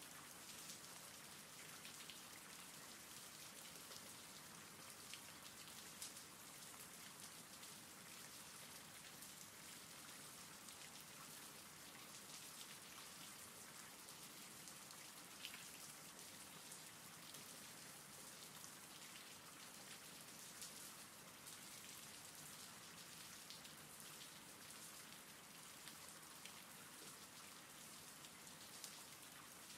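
Faint, steady rainfall: a continuous hiss of rain with scattered ticks of individual drops.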